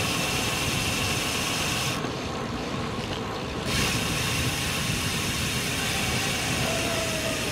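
Steady rush of wind and road noise while riding a road bicycle.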